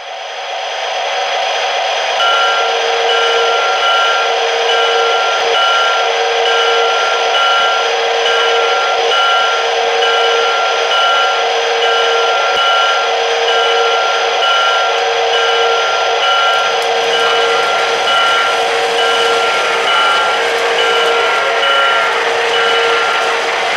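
O-gauge model trains running on three-rail track: a steady mechanical hum of motors and wheels, with a repeating ringing tone at a few fixed pitches, like a locomotive sound system's bell. From about two-thirds through, a broader rolling noise builds as freight cars pass close by.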